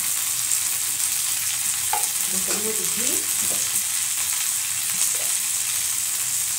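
Fish-head and vegetable chorchori sizzling steadily in an aluminium kadai, a continuous high frying hiss as the spices and fish cook in oil and freshly added ghee.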